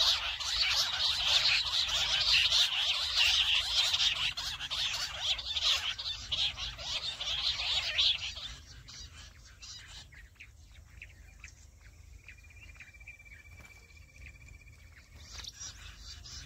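Jungle bush quail calls: a loud, dense, chattering chorus that stops abruptly about eight seconds in. Faint scattered bird calls and a thin whistle follow.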